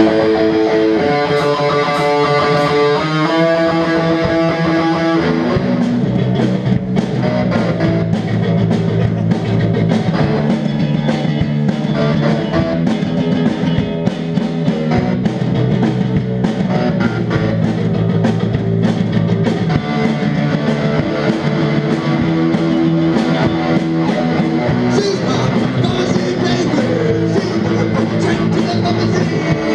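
Live rock band playing, with electric guitars and a drum kit. It opens on held guitar notes, and about five seconds in the drums come in and the band plays a dense, driving riff with steady drum hits.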